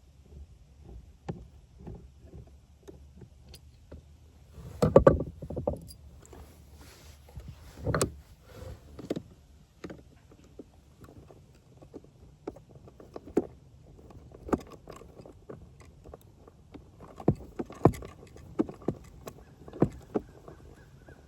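Scattered clicks, taps and rattles of hands working loose a conversion van's electrical circuit board and its panel, with louder knocks about five seconds in and again near eight seconds.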